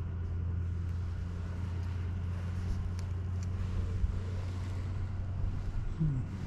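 Steady low machine hum with a few faint ticks and a brief falling creak near the end.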